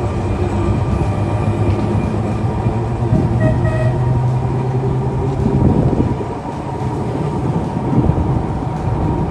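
Heritage boat tram running along its rails: a steady low motor hum over the rumble of wheels and open-air running noise, with a brief higher tone about three and a half seconds in. The hum drops away about five and a half seconds in while the rolling rumble carries on.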